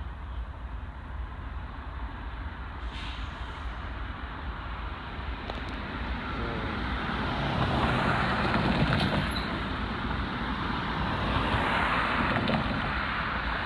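Road traffic: cars passing on the road beside the grade crossing, their tyre and engine noise swelling twice, about two-thirds of the way in and again near the end.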